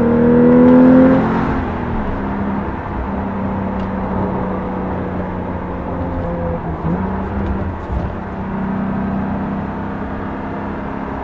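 Porsche 991.2 Carrera 4S twin-turbo flat-six with Fabspeed sport headers and sport cats, heard from inside the cabin with the exhaust valves open. The engine note climbs under acceleration for about a second, drops back, then holds a steady pitch, growing louder again over the last few seconds.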